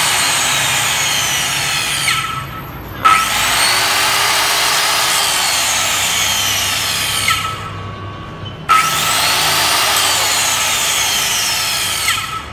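Hitachi C6BH circular saw, a 760 W 100 V Japanese-market model, running free with no cut. It whines at full speed in three runs of a few seconds each. After each release the pitch falls as the blade coasts down, and each restart comes on sharply.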